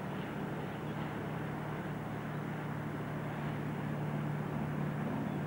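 Steady low engine hum of the paddle boat Goolwa as it manoeuvres at its berth, holding an even drone throughout.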